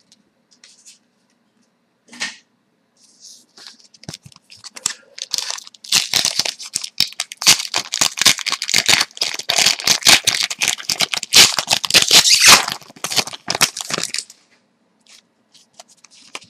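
Shiny trading-card pack wrapper being torn open and crinkled: a dense crackling from about five seconds in, which stops abruptly near the end, followed by faint handling of the cards.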